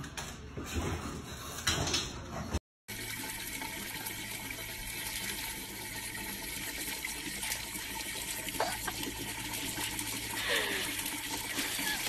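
A thin stream of water running from an outdoor wall tap and splashing below: a steady hiss that starts after a brief cut about three seconds in. Before it there are a few soft knocks.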